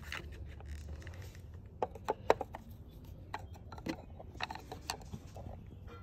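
Plastic ignition-coil wiring connector being worked loose by hand: scraping and rattling of the plastic tab with a few sharp clicks, the loudest a pair about two seconds in.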